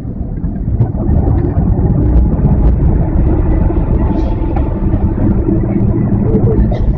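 Diesel railcar running along the track, heard from inside the cab: a steady low engine and wheel rumble that gets louder about a second in, with a few faint clicks.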